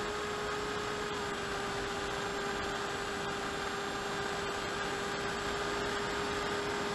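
Electric pusher motor and propeller of an AXN Floater-Jet foam FPV plane in cruise, picked up by the onboard camera: a steady drone with an even whine over hiss from the passing air.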